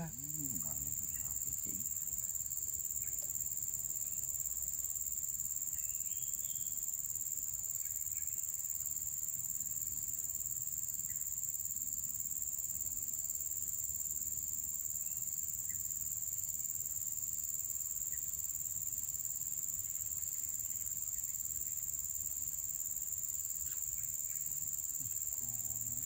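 Insects giving a steady, unbroken, high-pitched drone, over a low steady rumble.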